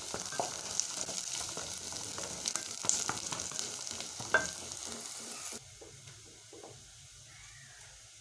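Sliced red onions sizzling in hot oil in an aluminium pot while a wooden spoon stirs them, with a few sharp knocks of the spoon against the pot. The sizzling cuts off suddenly about five and a half seconds in, leaving only faint room sound.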